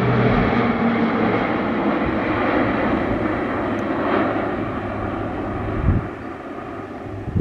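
PZL-130 Orlik turboprop aircraft flying past, the engine and propeller noise slowly fading as it moves away. A short low thump near the end.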